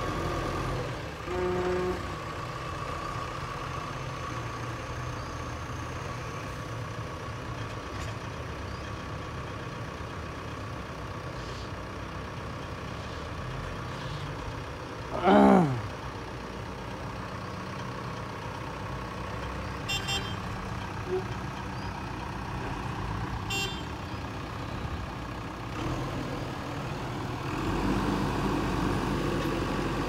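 JCB 3DX backhoe loader's diesel engine running steadily while it digs and loads soil, with a tipper truck standing by, and the engine growing louder near the end. A brief tone sounds about a second in. About halfway through comes the loudest sound, a short tone falling steeply in pitch. A few sharp metallic clanks follow a few seconds later.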